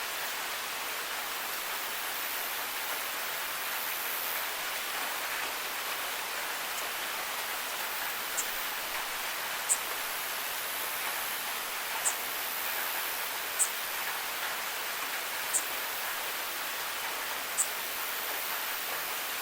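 Steady rain falling, an even hiss. From about eight seconds in, short high-pitched chirps sound every second or two over it.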